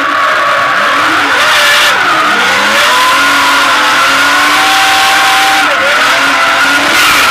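Turbocharged Toyota JZ straight-six of a drifting Toyota Soarer, heard from inside the cabin, running hard with its pitch rising and falling as the throttle is worked, over continuous tyre squeal from the sliding tyres.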